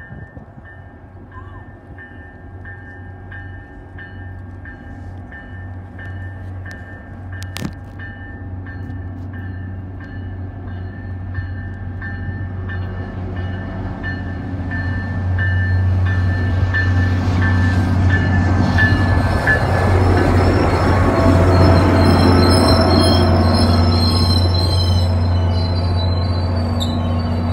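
Diesel-hauled train approaching and passing, its engine rumble growing steadily louder, with wheels squealing high on the rails near the end.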